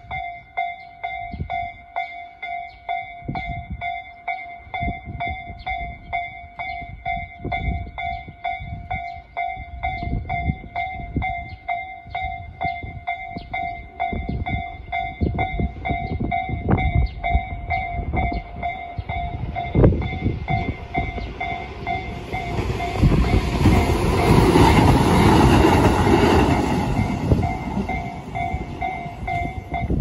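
Japanese level-crossing alarm ringing its electronic Tojo-type bell in a steady repeating ding, as a Tobu Kiryu Line train passes through the crossing, building up about two-thirds of the way in and fading away near the end. The bell stops at the very end.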